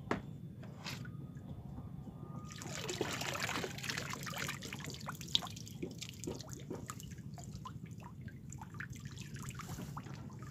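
Water rushing off a fine-mesh hand net as it is lifted out of a fish pond, about two and a half seconds in, then trickling and dripping back into the water from the hanging net.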